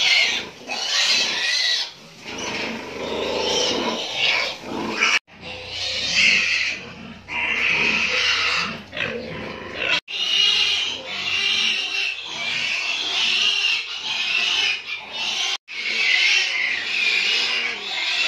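Domestic pigs in a crowded barn squealing loudly and almost without pause, with some lower grunting, broken three times by a split-second gap.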